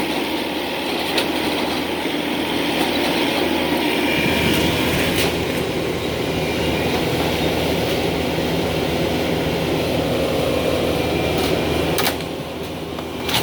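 Heavy demolition machinery running steadily, with a few sharp knocks and clanks. It eases off about twelve seconds in.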